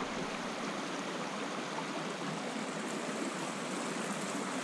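Shallow rocky creek flowing over stones: a steady, even sound of running water.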